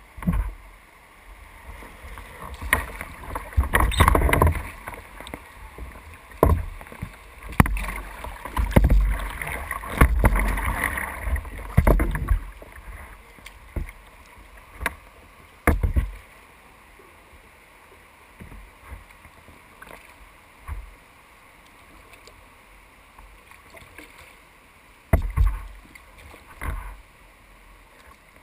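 Kayak being paddled on a creek: paddle strokes splashing and water washing against the hull, heard through a camera on the front deck, with irregular knocks and low thumps. Busy through the first dozen seconds or so, then sparser, with a few more thumps near the end.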